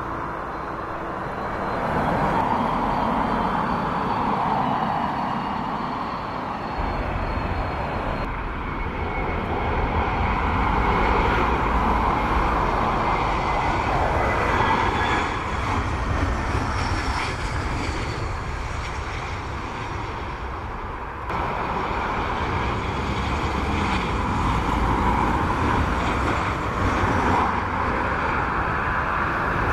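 Jet airliner engines heard from beside the runway: an Airbus A330 taxiing with a thin whine that falls in pitch, then an Airbus A321 and a Boeing 737-800 on landing, the engine noise swelling and fading. The sound changes abruptly twice where the recording cuts.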